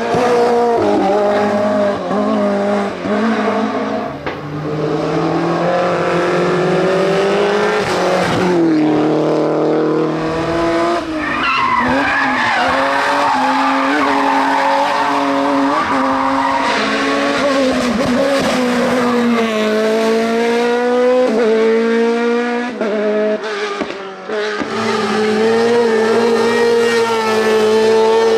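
Racing car engines revving hard, the pitch climbing and dropping back again and again through gear changes and lifts, with tyres squealing through the corners.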